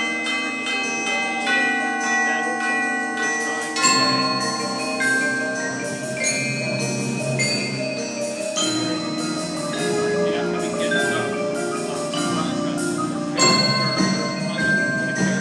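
Indoor drumline front ensemble, marimbas and chimes among other keyboard percussion, playing a ringing melodic passage of overlapping sustained notes. Louder accented hits come about four seconds in and again near the end.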